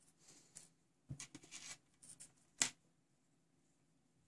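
Faint handling noises from multimeter test leads and alligator clips: light clicks and brief rubbing, with one sharper click about two and a half seconds in.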